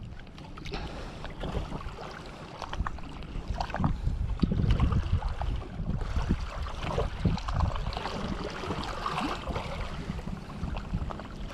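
Wind buffeting the microphone over small waves lapping and splashing against shoreline rocks, an irregular rushing and sloshing.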